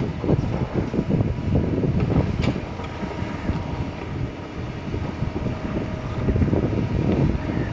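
Diesel engine of a Kobelco 220 hydraulic excavator running under load while it works, a steady low rumble that swells and eases, with wind buffeting the microphone.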